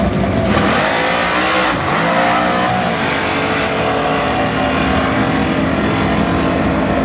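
Supercharged drag car launching hard off the starting line about half a second in and accelerating flat out, the engine note climbing in pitch and dropping back at gear changes about two and three seconds in.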